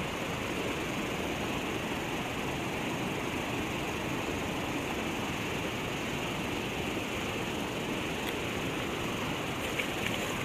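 Steady rush of a flooded river's current running past, an even hiss with no breaks.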